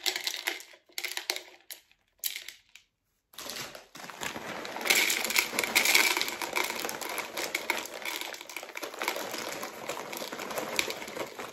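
Green hard wax beads poured from a plastic bag into an electric wax warmer pot: a dense pattering stream of small beads clicking into the pot, with the bag crinkling. Short rustles with pauses come first, and the pouring runs steadily from about three and a half seconds in, loudest around five to six seconds.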